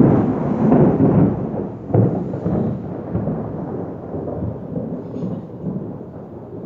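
Thunder: a sudden loud clap right at the start, a second crack about two seconds in, then a low rumble slowly fading away.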